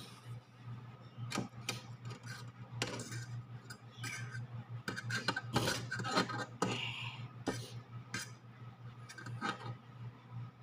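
Metal fork and spoon clinking and scraping against a metal pot as instant noodles are lifted out, in scattered short clicks and scrapes, with a steady low hum underneath.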